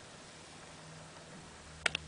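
Faint steady low hum, then two sharp light clicks in quick succession near the end: small tools and wire being handled while bus wire is fitted to a solar panel.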